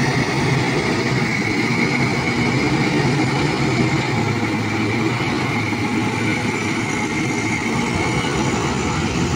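Case 770 FX backhoe loader's diesel engine running steadily under load as the machine drives with a full front bucket of mud and lifts it, with a faint steady high whine over the engine.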